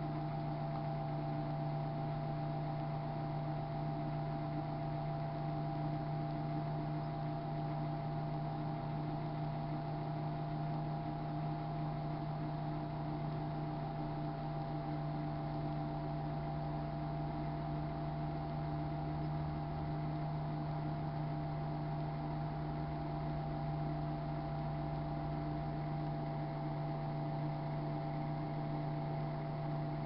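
Sharp Carousel microwave oven running with a tomato cooking inside: a steady hum.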